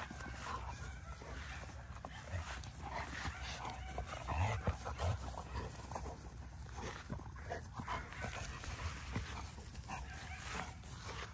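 XL bully dogs and puppies play-fighting on grass: scuffling and irregular short dog noises, a little louder around the middle.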